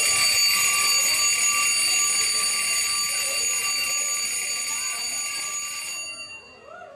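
Electric stage bell ringing continuously as the signal that the play is about to begin. The ring slowly loses level and stops about six seconds in.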